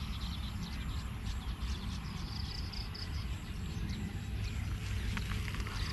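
Outdoor ambience: a steady low rumble, with a run of high, quick chirps, about six a second, near the middle.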